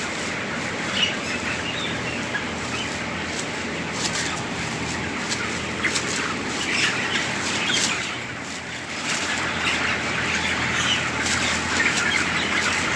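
A crowded flock of chickens in a poultry shed, clucking and chattering constantly with wings flapping and scuffling among them, over a steady low hum.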